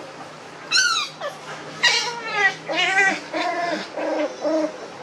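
Puppies about five and a half weeks old yelping and whining during rough play-fighting, a string of about six short, high, wavering calls starting about a second in.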